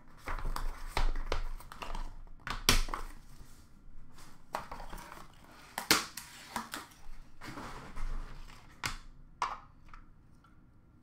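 Hands opening a hockey card box and handling its packaging: irregular crinkling and rustling of wrapping, with sharp clicks and knocks as pieces are set down and dropped into a plastic bin.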